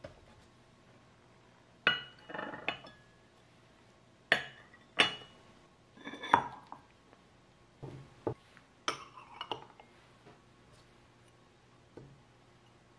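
Small ceramic bowls and plates clinking and knocking together as they are picked up, set down and stacked on a table: about a dozen scattered clinks, a few of them sharp.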